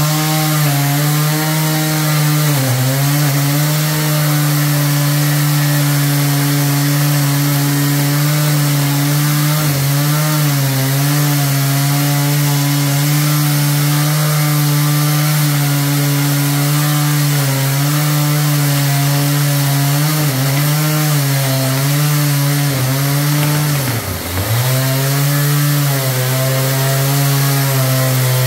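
Chainsaw running at high revs while cutting into a wooden beam, with a steady high-pitched engine note. The note sags under load now and then, most deeply about 24 seconds in, and then picks back up.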